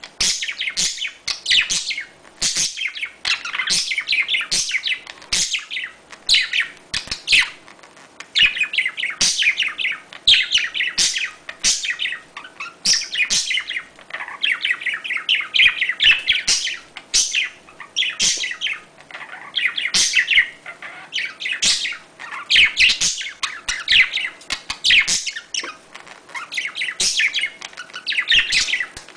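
Budgerigars chirping and chattering during mating, in fast runs of sharp, high chirps about a second long, broken by short pauses.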